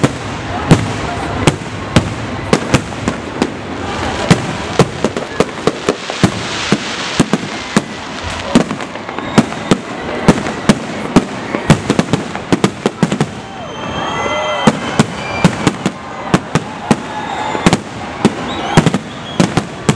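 Aerial fireworks bursting in a dense, irregular barrage of sharp bangs, at times several a second, over a continuous crackling wash.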